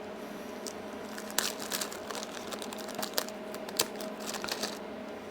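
Plastic packaging crinkling, with scattered small clicks and taps, as an oscillating multi-tool's saw blade is unwrapped and handled.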